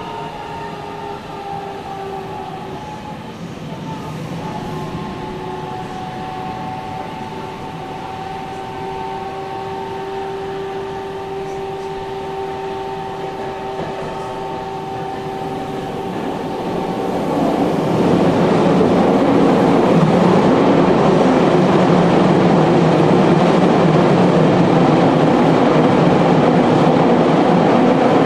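Nagoya Municipal Subway 6050 series train heard from inside the car while running in the tunnel. A whine of a few tones dips in pitch at first and then holds steady over the running noise. About 17 seconds in, the rumble and rush of wheels and tunnel grow markedly louder and stay that way.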